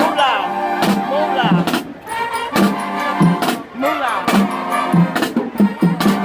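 Marching band playing: massed brass holding and sliding chords over a steady drum beat.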